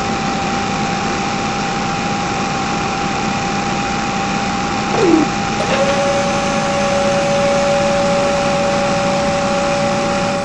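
Small motor of a DIY mini drilling rig running steadily with a high whine. About five seconds in a short falling tone passes, and a second, lower steady whine joins it.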